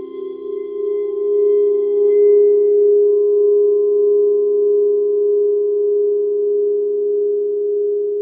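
Several crystal alchemy singing bowls sounding together in long sustained tones, one low-middle note strongest with others above and below it. The sound swells about a second in and then holds steady with a slow wavering beat, while a brief shimmer of high overtones dies away after about two seconds.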